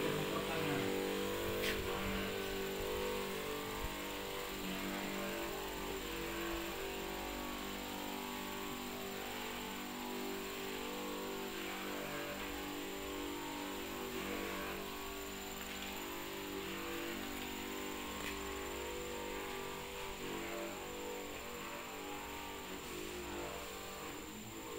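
Electric pump motor of a RedFox knapsack disinfectant sprayer humming steadily, growing slowly fainter.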